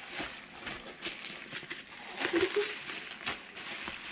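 Cardboard box and paper packaging being handled and opened: irregular rustling, scraping and crinkling.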